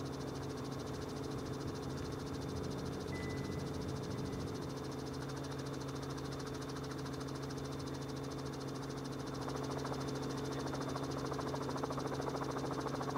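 A steady engine drone with a fast, even pulsing and a faint high whine, growing slightly louder in the last few seconds.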